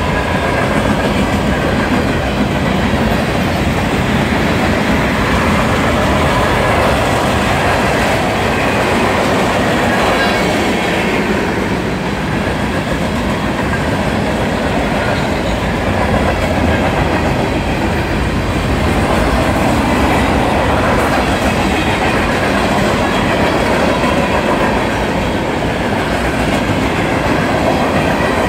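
Empty centerbeam flatcars of a freight train rolling past close by: a steady, loud rumble and rattle of steel wheels on the rails.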